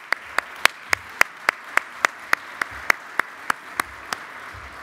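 Audience applause, with one pair of hands clapping close to the microphone in a steady beat of about three to four claps a second that weakens near the end.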